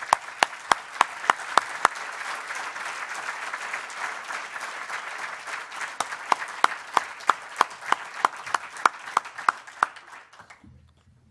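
Audience applauding, with one person clapping close by in sharp, even claps about three a second; the applause dies away near the end.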